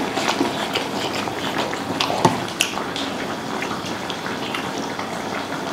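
Hotpot broth bubbling steadily in a pot on a portable gas stove, with scattered light clicks of chopsticks and cups.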